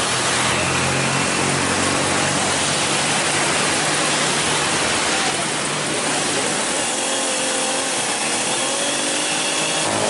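An engine running steadily under a loud, even hiss. The sound changes abruptly about five seconds in, and higher faint tones join it in the last few seconds.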